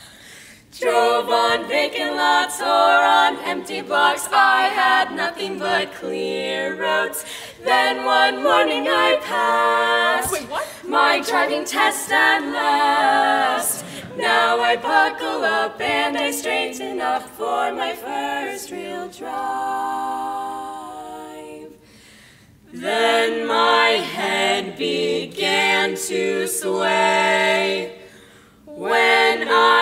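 Women's barbershop quartet singing a cappella in four-part close harmony, in phrases broken by short pauses, with one long held chord about twenty seconds in.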